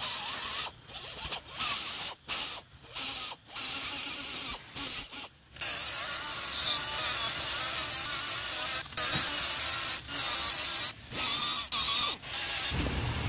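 Right-angle die grinder with an abrasive disc grinding the webbing of a differential housing casting, clearancing it so an E-locker's magnet will clear. It runs in short stop-start bursts at first, then grinds more steadily, and stops shortly before the end.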